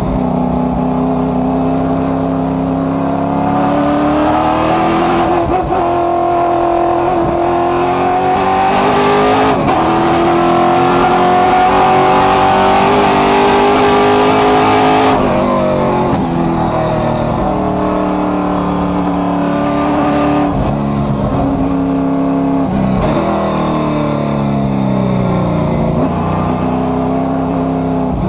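Race car engine heard from inside the cockpit under hard running on track. The revs climb steadily in a long pull to a peak about halfway through, drop suddenly, then rise and fall in shorter swings through the corners.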